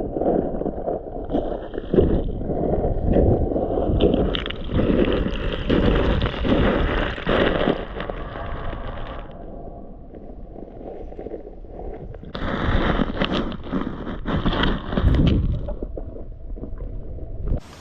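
Wind rumbling and buffeting on the microphone, mixed with moving creek water, rising and falling in irregular gusts.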